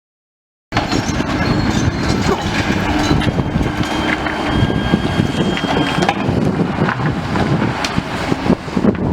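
Excavator demolishing a building: its engine running under continuous crunching, knocking and scraping of breaking debris and metal, starting suddenly under a second in, with a thin metallic squeal held for a few seconds in the middle.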